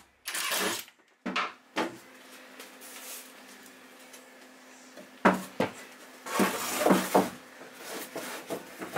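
Irregular wooden knocks and clunks in a small room, as boards and shelf pieces are handled and set down: a few single knocks, then a quick run of clatter about six to seven seconds in.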